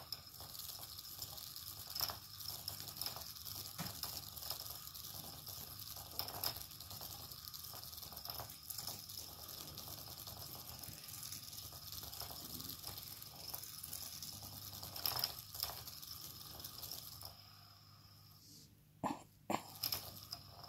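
Battery-powered interactive cat toy running, its small motor whirring with a thin steady whine and light ticking, and cutting off about seventeen seconds in. Near the end come two sharp taps about half a second apart on the plastic toy as the kitten paws at it.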